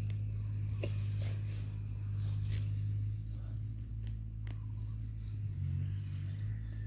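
Crackling and light crunching of dry rice straw underfoot as someone walks, over a steady low hum that shifts slightly about five and a half seconds in.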